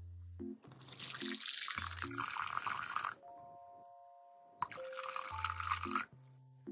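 Water poured from a glass measuring jug into a glass bowl in two pours, splashing into the bowl: a longer pour of boiled water, then about a second and a half later a shorter pour of room-temperature water. Light keyboard music plays throughout.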